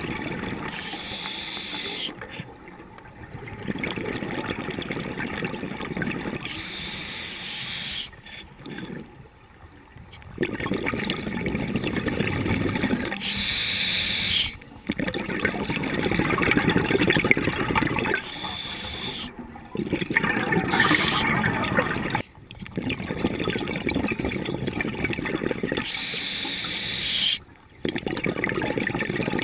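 Scuba diver breathing through a regulator, heard underwater through a camera's waterproof housing: a repeating breathing cycle of hissing inhalation and rushing, bubbling exhalation, about every six seconds.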